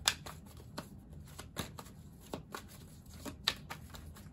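Tarot deck being shuffled by hand: an irregular run of soft card slaps and flicks, with sharper snaps just after the start and about three and a half seconds in.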